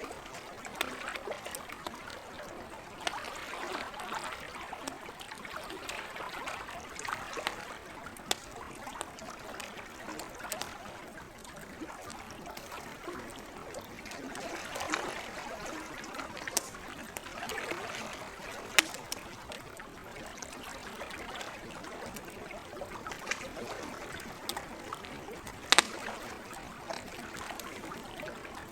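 Gentle lake water washing steadily, with a wood campfire crackling in scattered sharp pops; the loudest pop comes near the end.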